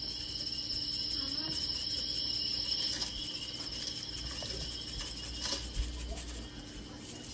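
A steady, high-pitched, cricket-like trill that fades near the end.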